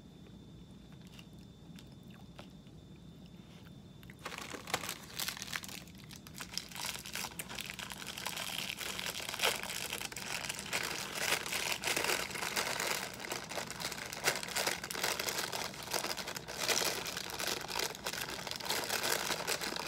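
Plastic sleeve of saltine crackers being opened and handled: quiet for about four seconds, then continuous crinkling and crackling of the wrapper.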